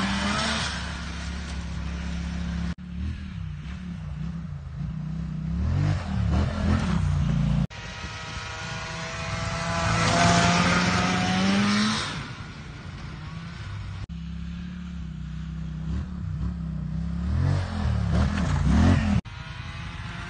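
Snowmobile engine revving, its pitch rising as it pulls away, then wavering up and down. The sound breaks off abruptly three times where clips are cut together.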